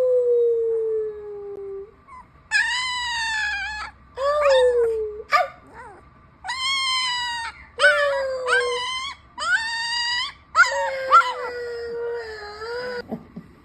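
Two-week-old red-and-white Siberian husky puppy howling: a string of about seven drawn-out, high howls, most bending up in pitch and then sliding down, with short breaks between them.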